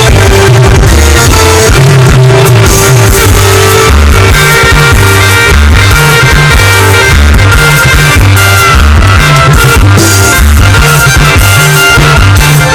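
A live rock band playing during a sound check: electric guitar, bass and drum kit over a PA, very loud and muddy on a phone microphone.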